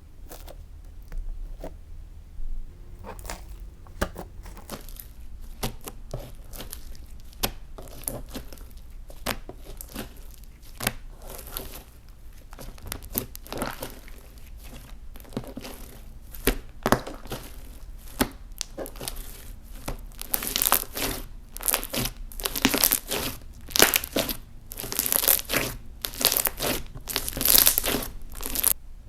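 Clear slime being kneaded and stretched by hand, giving a run of sticky crackles and clicks that come faster and louder about twenty seconds in.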